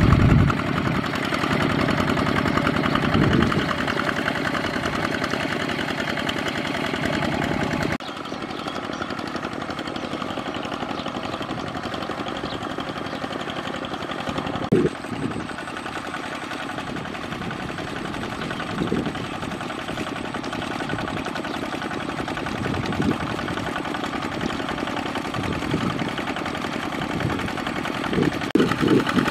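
Single-cylinder diesel engine of a two-wheel walking tractor (power tiller) chugging steadily as it works mud with cage wheels, with a few dull thumps. The sound changes abruptly about eight seconds in and is a little quieter after.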